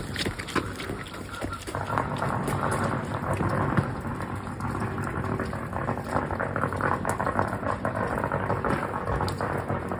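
A lit squib (small firecracker) fizzing and crackling, a dense, sputtering crackle that builds about a second and a half in and goes on for several seconds.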